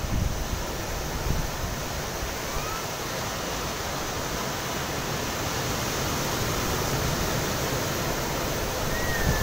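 Ocean surf breaking and washing up the sand and around concrete breakwater blocks: a steady rushing wash that swells a little in the second half.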